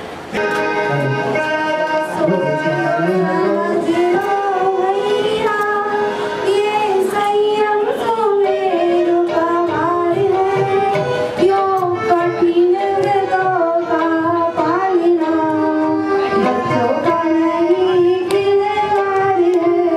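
Music: a sung melody with instrumental accompaniment, long held wavering notes over a light percussive beat.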